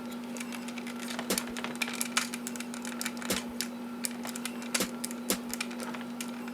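Irregular clicks and taps of the ABS plastic parts of a 4th Party MP-30 Ratchet transforming figure being handled and worked, over a steady low hum.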